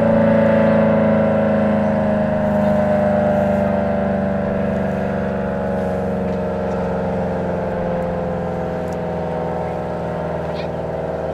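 ACA Allertor 125 civil defense siren sounding loud, its chord-like tone sliding slowly and steadily downward in pitch as it winds down.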